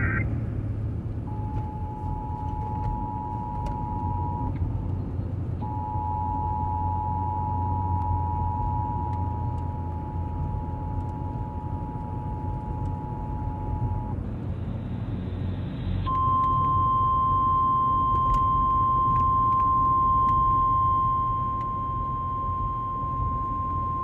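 Emergency Alert System two-tone attention signal playing over a car radio, breaking off once for about a second near the start and then resuming. After a short burst of hiss it gives way to a steady single-tone weather alert tone. A low rumble from the car runs underneath.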